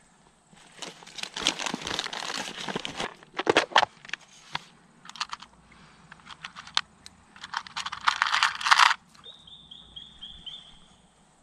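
Rustling through a backpack, then a clear plastic tackle box handled and small lead jig heads clicking and clattering together as a handful is tipped into a palm. Near the end a bird gives a quick run of about five high chirps.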